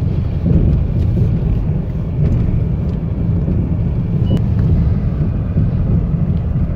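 Cabin noise of a BMW E38 7 Series diesel cruising at about 100 km/h: a steady low road and engine rumble. About four seconds in comes one short chime, the car's ice warning for an outside temperature below 3 °C.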